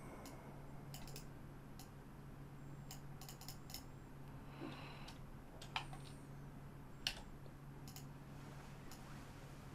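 Computer mouse clicks and keyboard key presses, scattered and faint, with two louder clicks about six and seven seconds in, over a steady low hum.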